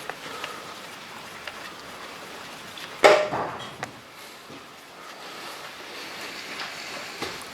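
Faint clicks of engine parts and tools being handled, with one sharp clank about three seconds in that rings briefly.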